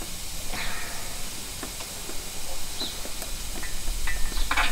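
Engine stand being turned by hand to rotate a Fiat 500 F 499cc engine block upright: a few faint metal clicks and a louder clunk with a brief ring near the end, over a steady hiss.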